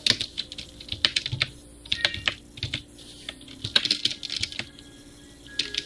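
Keys of a computer keyboard being typed on slowly with one hand: irregular clicks in short runs, with brief pauses between them.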